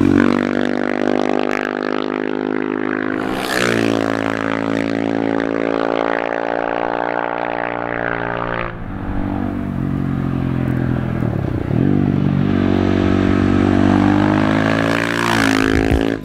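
Husqvarna FE 501 supermoto's single-cylinder four-stroke engine through an FMF exhaust, pulling hard under acceleration. Its note climbs, drops with a gear change a few seconds in and climbs again, then falls sharply near the middle as the throttle is closed, and rises again near the end.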